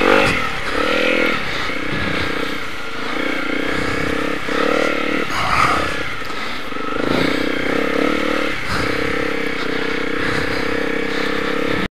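Motorcycle engine under way on a muddy dirt track, the revs rising and falling again and again with the throttle.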